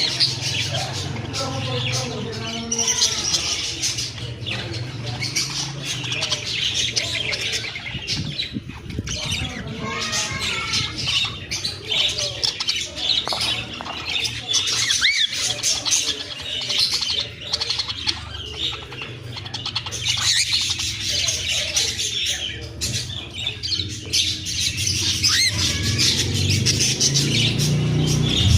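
Pet parrots chirping and chattering continuously, many quick overlapping chirps with occasional squawks and short rising whistles.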